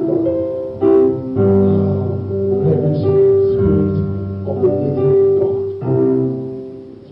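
Slow instrumental worship music on keyboard, held chords changing every second or two.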